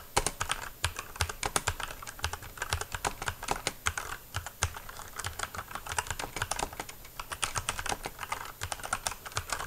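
Typing on an Inca IKG-451 Empousa II mechanical keyboard with brown switches, recorded close up: a fast, uneven stream of key clacks.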